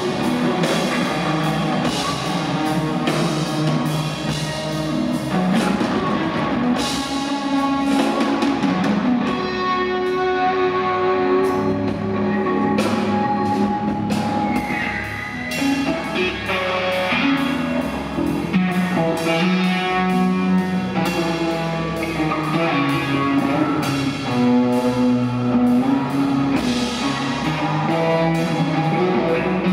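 Rock band playing live at full volume: electric guitar over drums and bass guitar.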